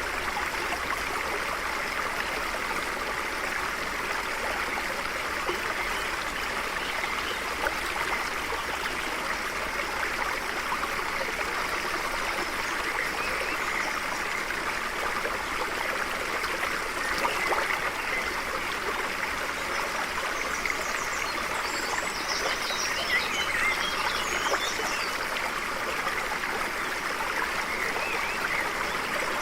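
Stream of water flowing and trickling steadily over rocks. A few quick high bird chirps come in about two-thirds of the way through.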